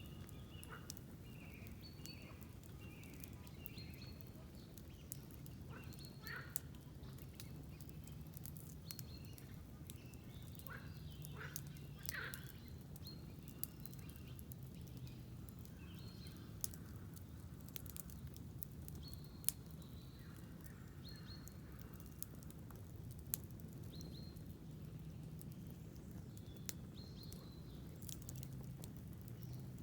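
Campfire crackling with scattered sharp pops over a low steady noise of the burning fire, while small songbirds chirp and sing short phrases throughout.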